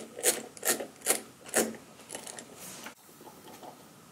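Hand rubbing and scraping at the reel brake drum and brake band of a Revox B77 reel-to-reel: four quick strokes in the first two seconds, then fainter rubbing. The brake band is being dusted off because the brake no longer holds well.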